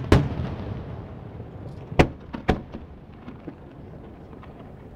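Fireworks shells bursting: a sharp bang right at the start that fades out, then two more bangs about half a second apart around two seconds in, followed by a few faint crackles.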